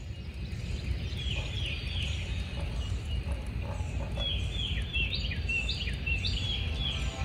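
Bird song: short, down-slurred whistled notes repeated in quick series, over a low steady rumble.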